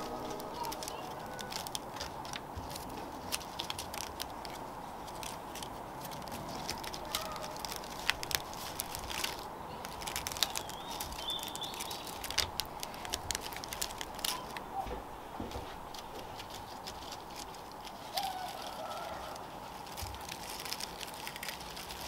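Dried palm leaflets crackling and rustling as they are handled and woven by hand, in scattered sharp ticks and crinkles. Faint bird chirps come through now and then.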